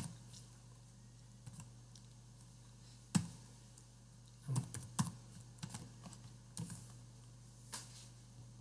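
Computer keyboard keystrokes: a few scattered, unhurried clicks, some in short clusters, over a faint steady low hum.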